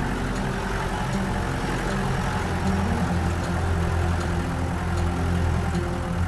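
Engine of a Mahindra 4x4 jeep running steadily while driving, a continuous low hum whose pitch shifts slightly.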